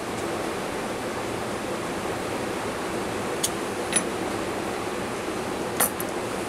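Steady background hiss with three light, sharp metallic clicks: a steel washer and small hand tools being set down and picked up on the workbench.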